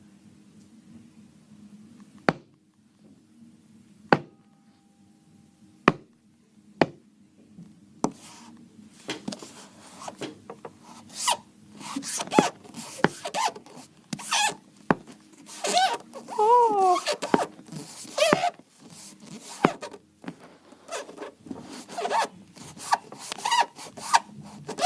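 Sound effects for a stop-motion film: a few sharp knocks spaced a second or two apart, then from about a third of the way in a fast run of rustling, scraping strokes, with a short wavering whistle-like wail about two-thirds of the way through.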